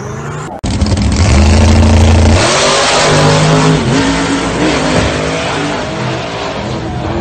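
Muscle car's engine at full throttle on a drag-strip run, loud, its pitch stepping up and then rising and dipping as the car accelerates away. A quieter engine sound from the previous clip is cut off sharply about half a second in.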